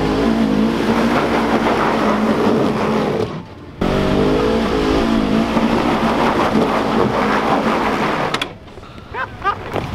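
Side-by-side UTV engine working hard under load as it climbs a steep hill, its pitch wavering with the throttle. It cuts off abruptly for a moment about three and a half seconds in and falls away near the end.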